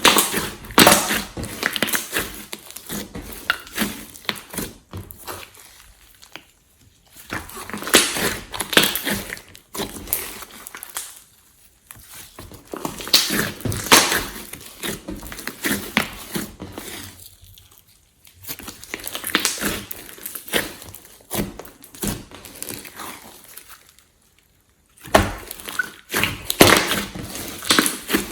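Hands squishing, stretching and pressing glossy slime, giving wet clicks and crackling pops. The sound comes in bursts of a few seconds with short pauses between them.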